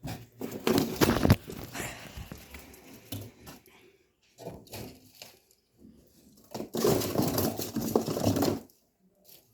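Tissue paper being crumpled and torn by hand, in two loud spells about a second in and again near the end, with smaller rustles between.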